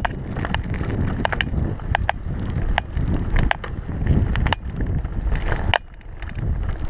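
Mountain bike riding over a rough gravel forest trail: a heavy rumble of tyres and wind on the microphone, broken by frequent sharp clicks and knocks as the bike rattles over bumps.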